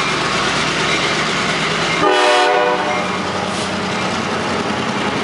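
Passing train's cars rumbling and clattering over the rails close by. About two seconds in, one short, loud blast of a multi-chime locomotive horn, the rear horn of locomotive 157 at the back of the consist.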